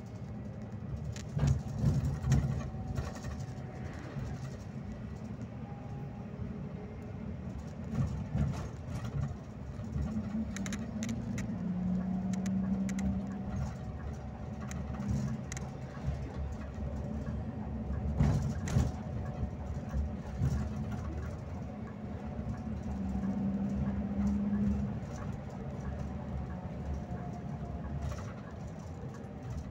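Cabin sound of a Scania K360IB coach on the move: a steady low engine and road rumble, with rattles and knocks from the bus interior and a few louder bumps. A low engine drone swells twice.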